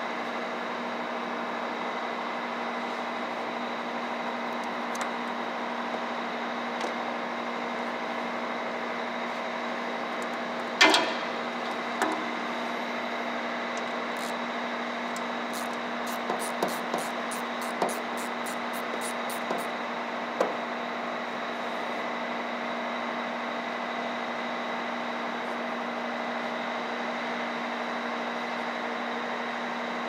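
Steady machine drone, with a sharp metallic knock about eleven seconds in and several lighter clicks and taps over the next ten seconds as diesel hose fittings are handled.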